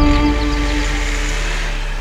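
Dramatic background score: a held chord slowly fading away.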